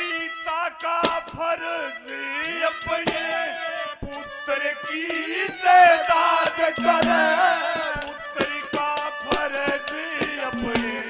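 Live Haryanvi ragni: a male voice singing in a strained, belting style over a beat of hand-drum strokes and held melody tones.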